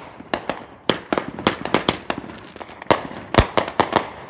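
A Brothers 'Old Ironsides' 350-gram consumer firework cake firing: an irregular rapid run of sharp bangs, a dozen or more, as its shots launch and burst overhead. The heaviest, deepest boom comes about three and a half seconds in.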